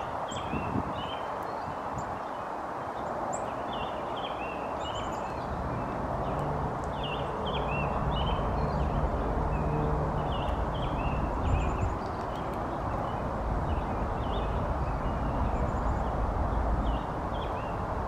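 Small birds chirping and calling, many short chirps, often several a second, over a steady hiss. A low rumble comes up about six seconds in and drops away near the end.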